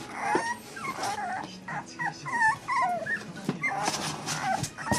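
Basenji puppies, just over four weeks old, whining: a string of short, wavering high-pitched whines, with scattered clicks and scratches as they clamber over the edge of a cardboard box.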